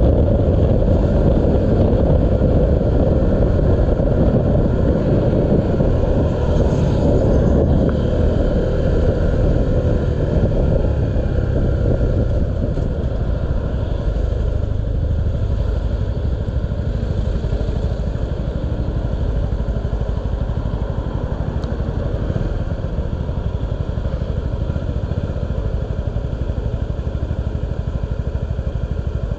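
Honda 125cc motorcycle engine running while the bike is ridden through traffic, its steady note easing a little about twelve seconds in.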